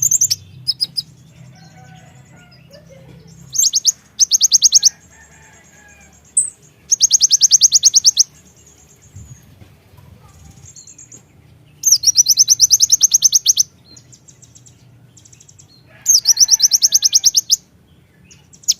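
Konin (kolibri ninja) sunbird calling: loud bursts of very fast, high trilled notes, each lasting about a second or a little more, repeated every few seconds with a few softer chirps between.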